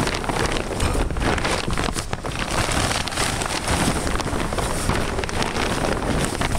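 Plastic shipping cover crinkling and rustling as it is crumpled and pulled out of a boat's storage compartment.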